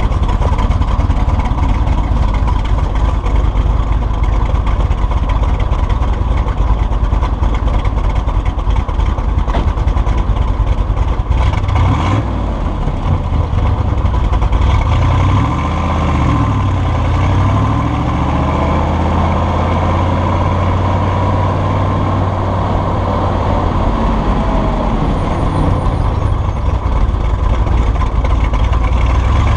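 1965 Corvette Sting Ray's V8 engine running as the car is driven: a steady low rumble at first, then, from about halfway through, the engine pitch rises and falls several times as it revs.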